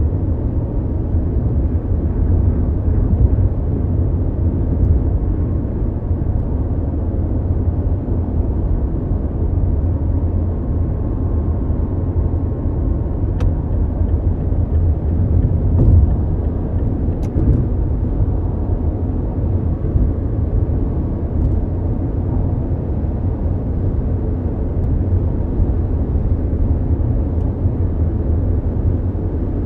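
Mazda CX-5 small SUV cruising at highway speed, heard from inside the cabin: a steady, low road and engine drone.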